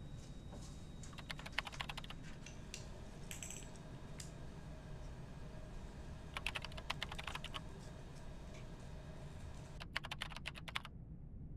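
Three short runs of rapid clicking over a steady low hum; the clicking stops abruptly near the end.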